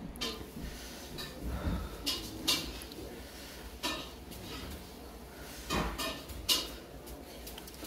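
Metal chopsticks clinking against a noodle bowl as tempura and noodles are moved about in the soup: several separate light clinks.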